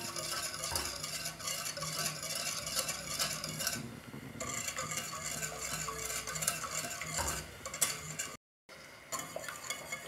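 Small wire whisk stirring sugar into hot water in a stainless steel saucepan, the wires scraping and clicking steadily against the pot as the sugar dissolves into a thin syrup. The sound eases briefly about four seconds in and cuts out for a moment near the end.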